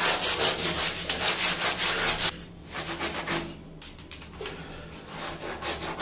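A green scrubber rubbing back and forth over the wet, soapy mesh of a plastic window AC filter in quick strokes. The scrubbing is loud for the first two seconds or so, then drops suddenly to softer strokes.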